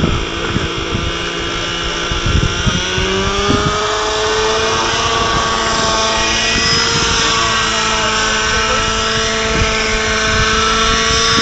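Radio-controlled model helicopter flying: its motor and rotor whine climbs in pitch about three seconds in, then holds steady at the higher speed.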